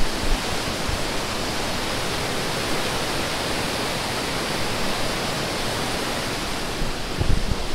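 Steady rush of river water pouring over a tiered weir, a continuous, fairly loud noise of churning white water.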